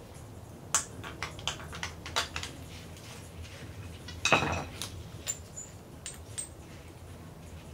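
Steel coilover parts (top hat, coil spring, screwdriver) clinking and clattering against each other and the concrete floor as the strut is taken apart by hand: a series of sharp metallic clinks, with the loudest clatter about four seconds in and a few light ticks after.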